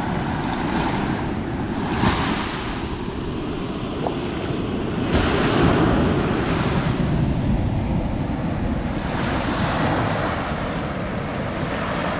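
Small surf breaking and washing up a sandy beach, surging about every three to four seconds over a steady rumble, with wind buffeting the microphone.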